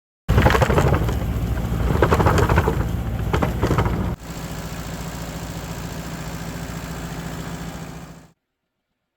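Engine of sweet potato harvesting machinery running, with a loud clattering, rumbling first half. Just after four seconds it drops abruptly to a quieter, steady engine run, then cuts off.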